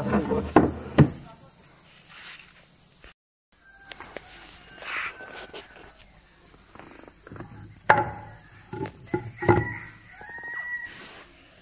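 Steady high-pitched insect chorus, with a few sharp knocks over it and short calls near the end. The sound cuts out briefly about three seconds in.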